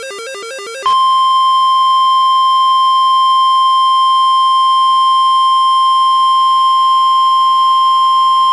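NOAA Weather Radio alert: the end of the warbling digital SAME header data bursts, then about a second in the steady, loud 1050 Hz warning alarm tone begins and holds without a break. The alarm tone signals a warning, here a tornado warning.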